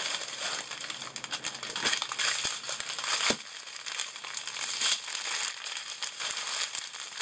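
Clear plastic wrapping crinkling as it is pulled off a bundle of small plastic bags of diamond-painting drills. The bags rustle against each other, with one sharper click a little over three seconds in.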